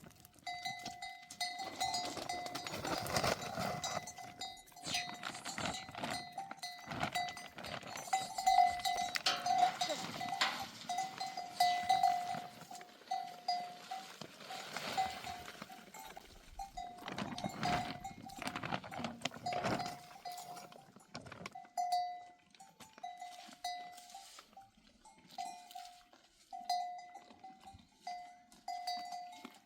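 A bell on a grazing sheep or goat clanking over and over at uneven intervals as the animal moves, with scattered scuffling and rustling from the flock.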